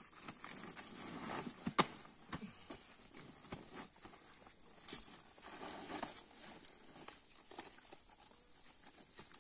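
Plastic sacks full of Brazil nuts rustling and knocking as they are lifted and heaved onto a mule's pack saddle, with a sharp knock about two seconds in and scattered thuds, which may include the mule shifting its hooves. A steady high insect hum carries on behind.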